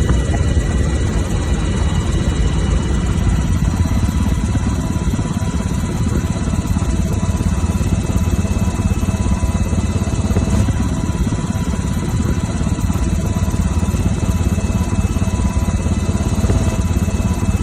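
Helicopter noise heard from inside the cabin: a steady, loud low drone from the rotor and engine, with thin, steady high whining tones over it.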